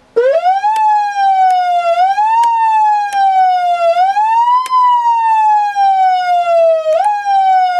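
Federal Signal PA300 electronic siren run by hand in manual mode. The wailing tone is pushed up quickly four times and after each push coasts slowly back down in pitch.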